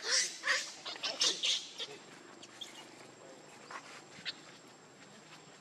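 Macaque squealing in a quick run of high-pitched cries over the first two seconds, then falling quiet apart from a few faint rustles.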